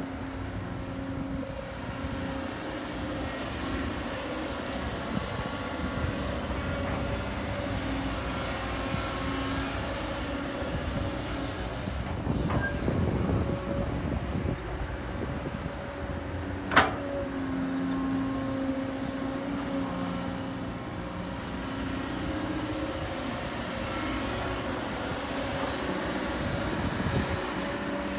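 Heavy diesel earthmoving machinery running steadily under load, its engine note getting rougher and louder for a couple of seconds near the middle. One loud sharp clank about two-thirds of the way through.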